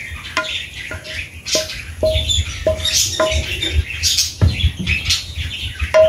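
A wooden spatula knocks against a frying pan and a ceramic plate as stir-fried water spinach is scraped out onto the plate. There are about two short ringing knocks a second at first, then two more spaced out. Birds chirp in the background.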